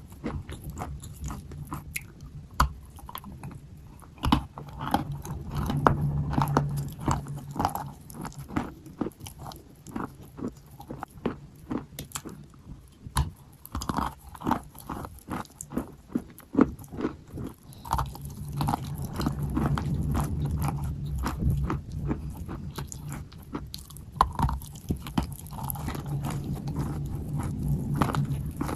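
Wet white chalk being bitten and chewed close to the microphone: a dense run of irregular crunches and crackles. A low hum comes and goes behind it.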